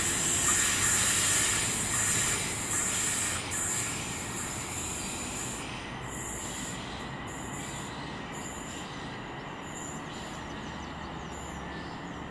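A train running past on the line, loud at first and fading over about six seconds as it moves away, leaving a quieter steady rumble.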